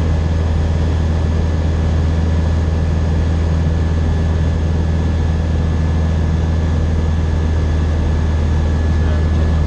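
Single-engine light aircraft's engine and propeller droning steadily in cruise flight, a loud, even low hum heard from inside the cockpit.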